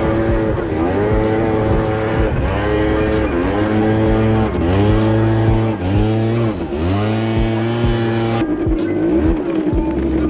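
Small two-stroke moped engine revved again and again, its pitch dropping off and climbing back each time the throttle is blipped, over background music with a steady bass. About eight seconds in, the sound cuts abruptly to a different, wavering engine note.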